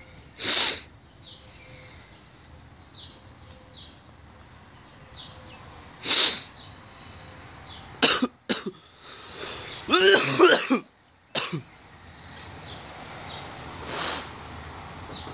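A man coughing on a hit of cannabis smoke from a hand pipe: two short hisses, then a burst of hacking coughs about eight to eleven seconds in, and a breath of smoke blown out near the end.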